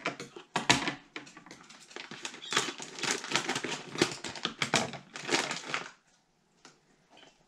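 Packaging being handled: a dense run of crinkling, crackling noises that stops about six seconds in.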